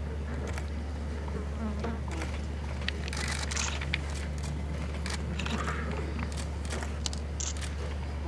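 A hush with no words, under a steady low electrical hum, with scattered light clicks and rustles.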